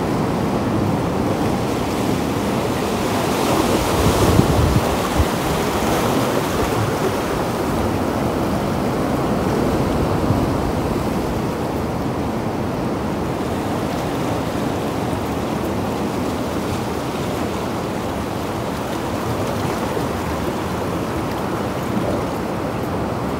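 Sea surf washing steadily over the shore rocks, with wind on the microphone, a little louder about four seconds in.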